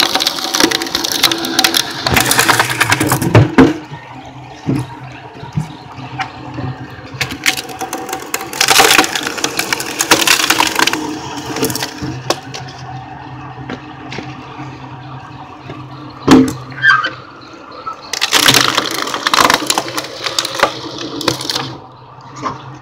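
Screw-cone log splitter driving into wood blocks: the wood cracks and splinters apart in four bouts of loud crackling, the sharpest single crack about two-thirds of the way in, over the steady hum of the splitter's motor.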